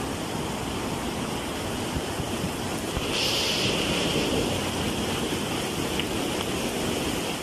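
Steady rushing roar of a fast brown floodwater torrent pouring down a street and pushing cars along, with a brief hiss about three seconds in.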